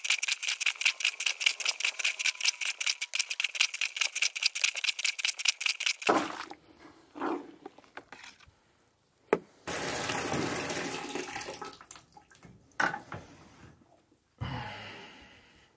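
Breathing Mobile Washer plunger pumped quickly up and down in a bucket of rinse water, making an even, rapid run of sloshing strokes. The strokes stop about six seconds in, and are followed by scattered splashes and a few seconds of water noise.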